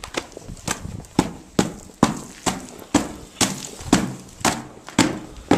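Footsteps crunching through snow in boots, an even walking pace of about two steps a second.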